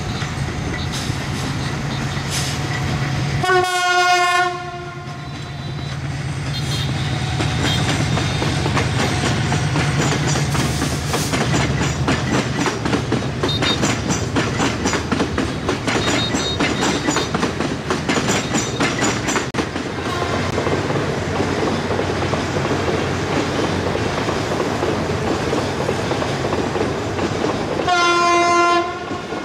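Passing diesel-hauled passenger train: the locomotive's engine running with a low hum and its horn sounding twice, a single note held about a second, about four seconds in and again near the end. In the middle the wheels clatter rhythmically over the rail joints.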